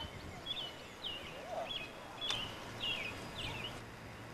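A bird chirping over and over outdoors, short sharp notes about twice a second, with one lower-pitched call from another bird about halfway through.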